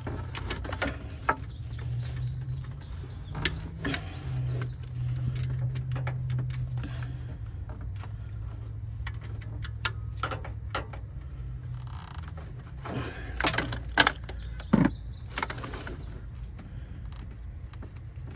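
Scattered metallic clicks and knocks of a wrench working a 10 mm bolt deep in an engine bay, with a cluster of sharper knocks near the end, over a low steady hum.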